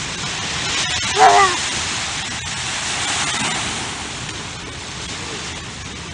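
Steady wash of small waves breaking on a sandy beach. About a second in comes one short, wavering voice-like call.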